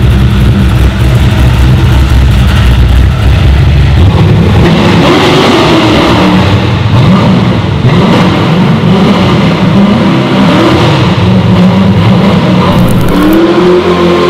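LS3-swapped 1955 Chevrolet V8 revving hard, its pitch swinging up and down repeatedly, while the rear tyres spin on concrete during donuts from about four seconds in. Near the end the engine settles into a steady high rev.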